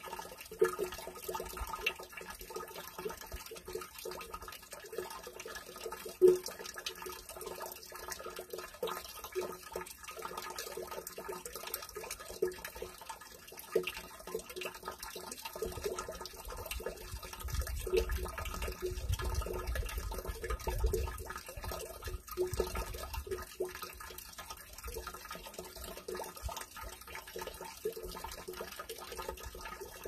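Water trickling from a spout into a stone water basin, with irregular plinking splashes that ring with a hollow tone; one sharper splash about six seconds in. A low rumble swells in the middle.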